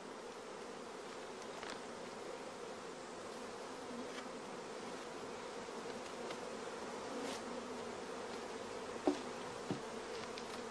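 Steady hum of a hive of honeybees crowded into a starter colony, with two light knocks near the end as the hive cover is set down.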